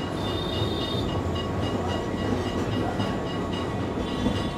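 Electric Kolkata tram running along its street track: a steady rumble of wheels and motor heard from on board. A high tone pulses rapidly, about six times a second, over the rumble, and a brief high squeal rings in the first second.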